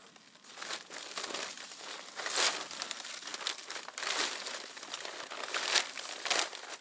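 Snow crunching and rustling in irregular bursts, with several sharper crunches, as someone moves about and clears snow on a snow-covered tractor. No engine is running.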